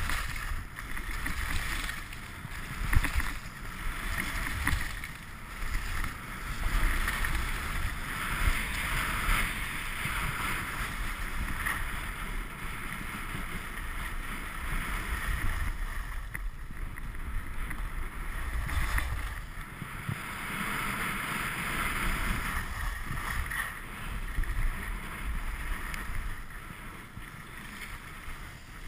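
Skis sliding and scraping over packed snow on a downhill run, a steady hiss that swells and fades, with wind rushing over the microphone.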